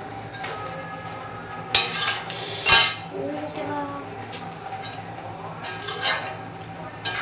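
Steel spatula stirring pork and bamboo shoot curry in a black iron wok, scraping and knocking against the pan's side with a few sharp metallic clinks, the loudest just under three seconds in.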